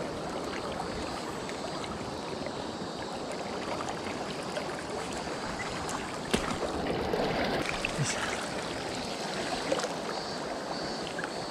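Shallow river riffle rushing steadily over stones, with a couple of small knocks about six and eight seconds in.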